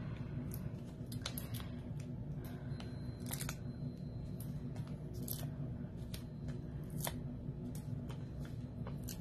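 Small, irregular clicks and light paper rustles as adhesive foam dimensionals are peeled off their backing sheet and pressed onto a paper tag, over a steady low hum.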